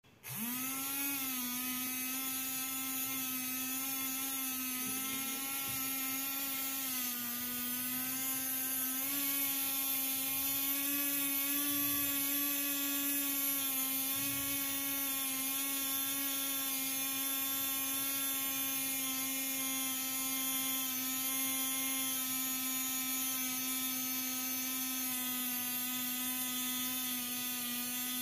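Small brushed DC motor switched on as its wires are connected, spinning up within a second to a steady electric whine as it drives the homemade smoke machine's bottle-cap blower; the pitch wavers slightly as it runs.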